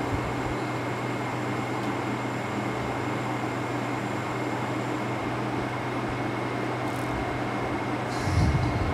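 Steady background hum and hiss, like an air conditioner or fan running, with a faint steady high tone. Near the end there is a short, louder low rumble.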